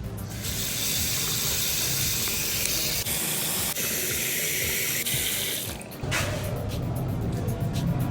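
Water running hard from a tap into a sink for about five seconds, then shut off.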